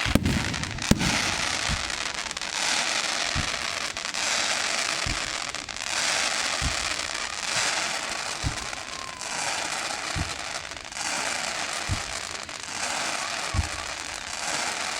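Fireworks display: a dense, steady crackling hiss from crackle shells that swells and ebbs, with a dull low boom about every second and a half to two seconds.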